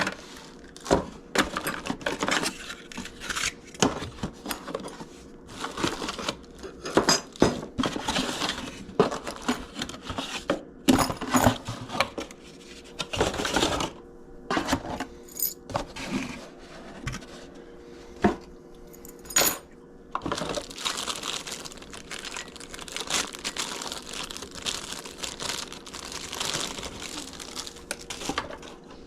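Rustling and crinkling with many small clicks and clinks of objects being handled.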